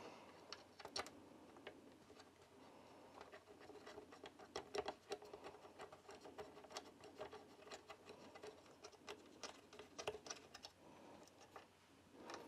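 Faint, irregular small clicks and scratches of a screw being turned by hand into a 3D printer's metal control box.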